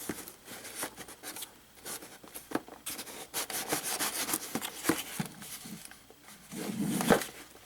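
Box packaging rubbing and rustling as a micro RC crawler truck is slid out of its box, with scattered light clicks and taps and a sharper knock near the end.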